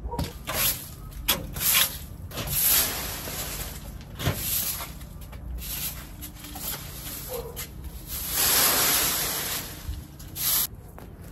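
Broom sweeping dry leaves and debris across brick paving, a run of brushing strokes with one longer, louder stroke about eight seconds in.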